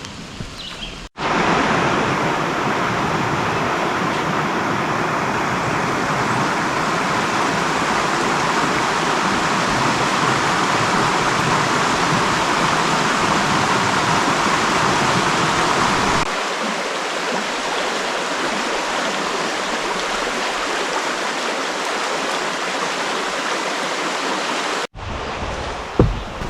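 Creek water rushing over rocks in a loud, steady rush. The sound cuts in abruptly about a second in, and its deeper rumble thins out about two-thirds of the way through.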